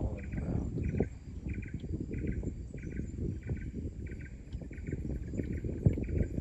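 Insect chirping in an even rhythm, about three short trilled chirps every two seconds, over a low, steady rumble.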